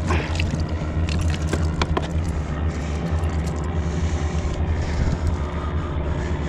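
A steady, low engine drone throughout, with a few light clicks and scrapes in the first two seconds as pliers work a hook out of a fish.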